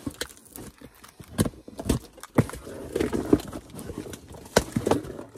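A cardboard package being opened and handled: irregular sharp clicks and knocks with some rustling.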